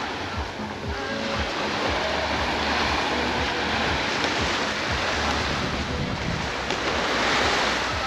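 Small waves breaking and washing up on a sandy shore: a steady surf wash that swells louder near the end.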